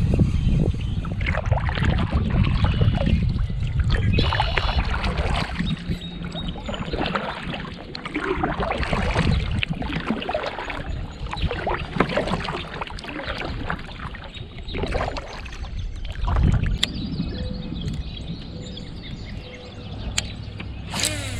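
Choppy lake water slapping and splashing against a boat hull, with a heavy low rumble for the first several seconds.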